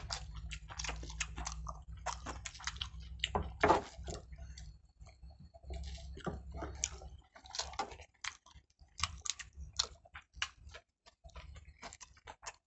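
Close chewing and lip-smacking of people eating chicken and rice by hand, a steady stream of short wet clicks and smacks. A low hum lies under it for about the first half.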